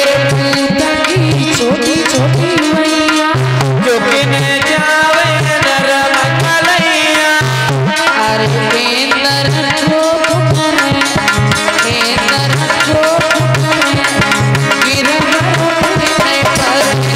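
Live instrumental Indian devotional folk music: a hand drum beats out a steady, repeating rhythm under a sustained melody line.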